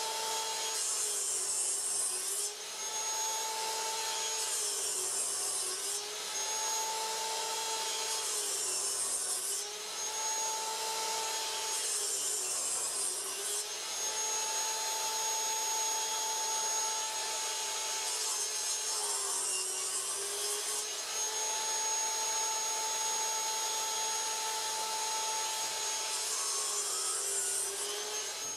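Metabo sliding miter saw motor running steadily with its blade taking repeated short cuts into wooden slats. Its whine dips briefly under each cut, roughly every two seconds, and there is a longer stretch without cutting in the middle.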